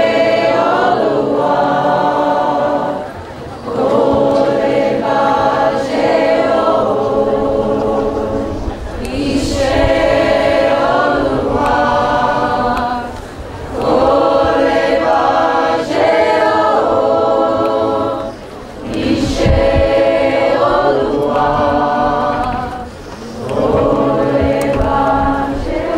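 A choir singing in harmony, in long held phrases of about four to five seconds, with brief pauses for breath between them.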